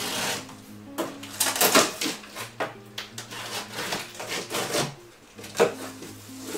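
Large cardboard box being opened by hand: flaps rustling, scraping and knocking, with a few sharp knocks, the loudest about two seconds in and again near the end.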